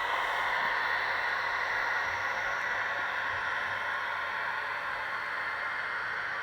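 Steady hissing running sound from the ESU LokSound 3.5 sound decoder in a Fleischmann ICE model train, played through its small speaker, easing off slightly after about two seconds.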